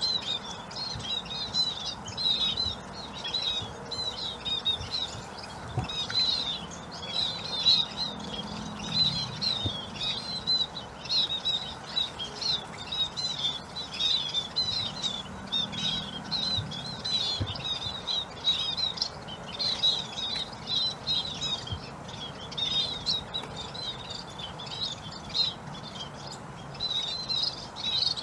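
A flock of munias chirping: a constant stream of short, high chirps.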